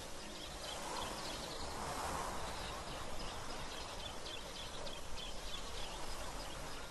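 Forest ambience: a steady hiss with a row of short, faint, high chirps repeating evenly, from wildlife calling.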